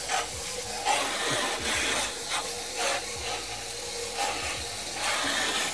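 Garden hose spray nozzle washing out a dirty HVAC blower wheel (squirrel cage), the jet of water hissing against the metal blades and swelling and easing as the stream is moved around.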